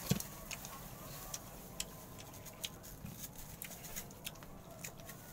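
Faint, scattered small clicks and crunches of green mango being chewed and cut with a knife.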